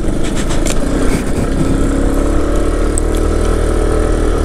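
Small motor scooter's engine running at steady throttle as it climbs a gravel road, its note settling into an even hum about a second and a half in.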